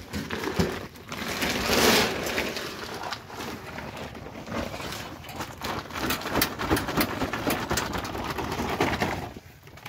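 Shredded cassava pouring out of a woven plastic sack into a wheelbarrow: a steady rushing patter of falling wet shreds with the sack rustling, which stops about nine seconds in.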